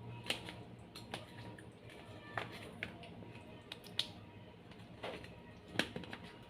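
Food being handled at a table: scattered light clicks and taps, about five sharper ones spread a second or so apart, over a low steady hum.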